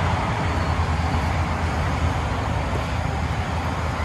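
Steady outdoor background noise: a low rumble with an even hiss above it.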